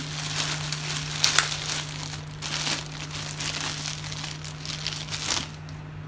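Clear plastic packaging bag crinkling and rustling as a new dryer door switch is pulled out of it by hand. The rustling stops about five and a half seconds in.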